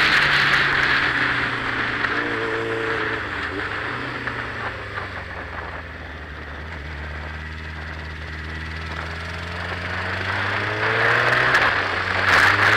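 Motorcycle engine and wind rush heard from on board: the engine drops in pitch and the wind dies down as the bike slows into a tight bend, then the engine climbs in pitch and the wind builds again as it accelerates out, from about nine seconds in.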